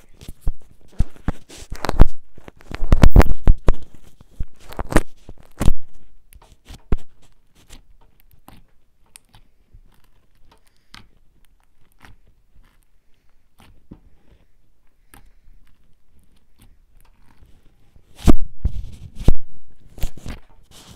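Close-up handling noise from a headphone cable and its plastic inline remote rubbed and tapped against the microphone: a dense run of sharp clicks and knocks, sparse small clicks through the middle, then a few loud knocks near the end.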